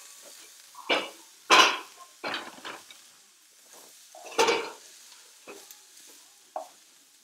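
Riced purple cauliflower sizzling faintly in hot olive oil in a frying pan, with a utensil stirring it in several irregular scraping strokes, the loudest about one and a half and four and a half seconds in.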